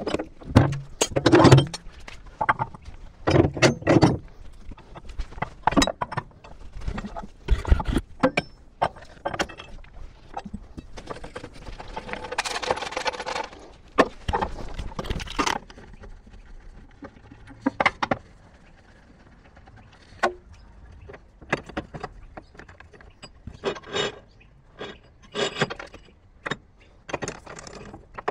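Metal hand tools clinking and knocking against the Unimog's steel spare-wheel carrier as the spare wheel is being taken off: a string of separate sharp clicks and taps, with a longer dense rattling stretch about twelve seconds in.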